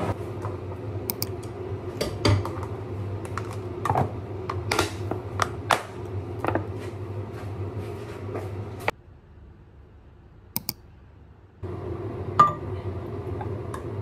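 Kitchen handling sounds: a food-storage container's snap-lid being fitted, its clasps clicking shut, then a spoon scooping chia pudding and clinking against a glass mug, one clink sharper than the rest. A steady low hum runs beneath.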